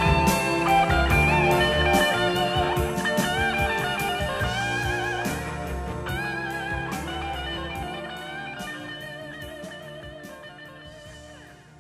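Live rock band playing an instrumental passage led by an electric guitar with bending, vibrato-laden lead lines over drums and bass, fading out toward the end.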